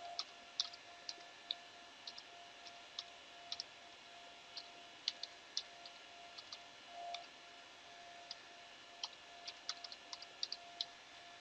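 Computer keyboard typing: irregular key clicks, some in quick runs and some with pauses between, over a faint steady hum.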